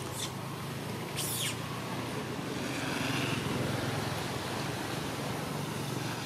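Steady low hum of distant motor traffic, with two brief, very high-pitched squeaks in the first second and a half.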